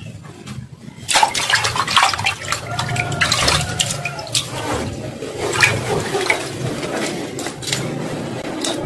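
Water running and splashing, starting about a second in, with many scattered clicks and knocks.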